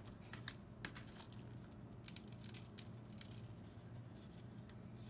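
Faint handling sounds of a hand rubbing and patting a dry spice rub into a raw pork loin on a metal sheet pan: soft scattered clicks and rustles over a low steady hum.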